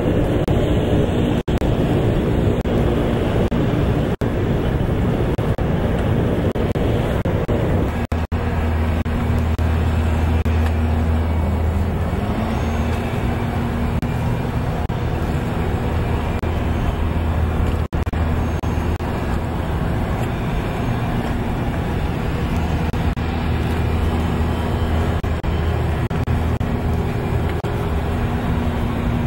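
An engine running steadily with a low, even drone, its pitch dipping briefly about twelve seconds in; the sound cuts out for an instant a few times.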